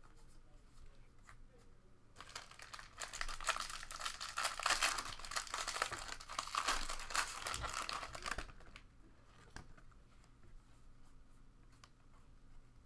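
Foil wrapper of a Bowman Draft trading-card pack being crinkled and torn, a dense crackling that starts about two seconds in and stops about three seconds later than its middle, near eight and a half seconds. Faint ticks of cards being handled come before and after it.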